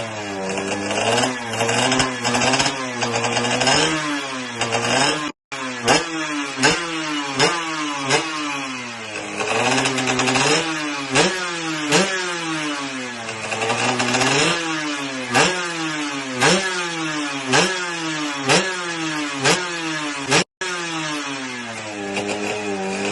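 Yamaha 125Z drag bike's two-stroke single-cylinder engine being blipped again and again, its pitch jumping sharply up and falling away about once a second.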